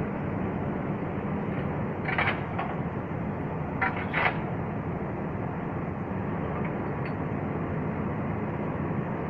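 Heavy diesel engine running steadily with a low, even hum, with a few brief sharp noises about two and four seconds in.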